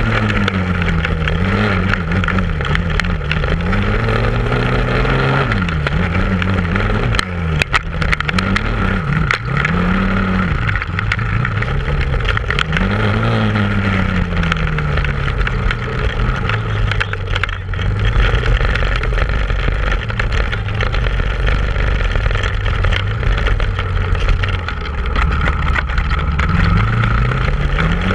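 ATV engine heard from a camera mounted on the machine, revving up and down with the throttle several times in the first half, then running at a steadier speed, and climbing again near the end.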